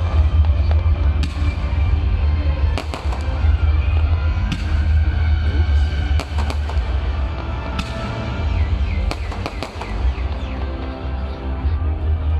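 Fireworks bursting, with sharp bangs every second or two, over loud music with a heavy bass.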